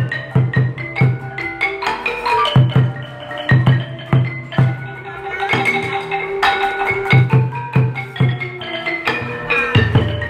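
Cambodian pinpeat ensemble playing: a roneat xylophone and a kong vong gong circle play a running melody over a regular beat on the skor thom barrel drums. The drum beat drops out briefly about halfway through, leaving a held note under the mallet melody, and then comes back.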